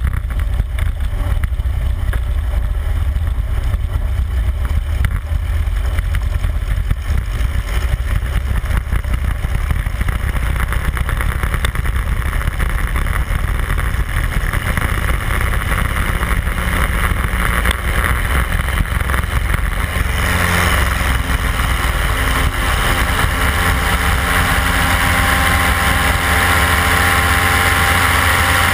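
Light amphibious aircraft's engine and propeller running steadily in flight, heard from a camera mounted outside on the airframe, with heavy wind rumble over the microphone. About twenty seconds in, the engine's steady tone comes through more clearly and the noise grows a little brighter.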